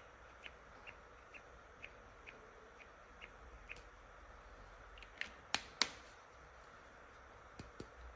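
Small plastic toy hairdressing tools being handled: light clicks at a steady pace of about two a second, then a few louder, sharper plastic clicks about five seconds in and two more near the end.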